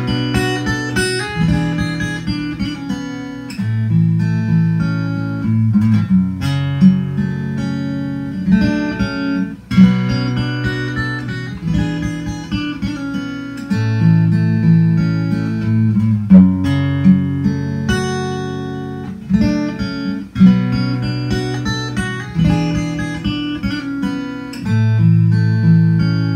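Solo steel-string acoustic guitar played fingerstyle: a picked melody over bass notes that change every couple of seconds, with brief breaks between phrases about ten and twenty seconds in.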